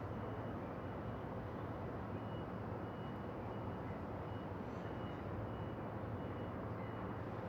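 Steady rumble of city traffic and a train station, with short high-pitched beeps repeating evenly, a little more than once a second.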